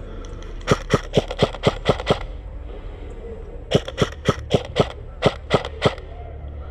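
Airsoft electric rifle, an EMG/Black Rain Ordnance Fallout 15, firing two quick strings of single shots, about seven and then eight sharp cracks at roughly four a second, with a short pause between the strings.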